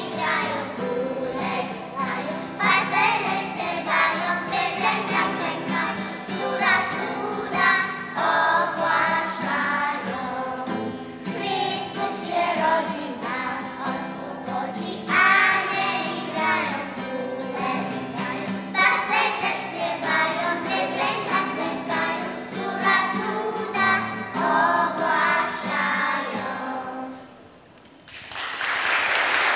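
A group of young children singing a Polish Christmas carol (kolęda) together into a microphone. The song ends a little before the close, and applause starts right after.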